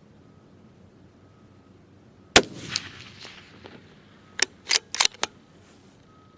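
A single rifle shot from a Remington 700 PSS in .308 Winchester, a sharp crack with a tail that fades over a second or so. About two seconds later comes a quick series of five sharp metallic clicks, the bolt being worked to chamber the next round.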